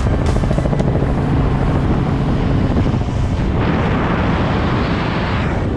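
Robinson R44 helicopter running overhead with wind buffeting the microphone, a steady low hum. About three and a half seconds in it gives way to a louder, even rush of freefall wind as the skydiver drops away from the skid.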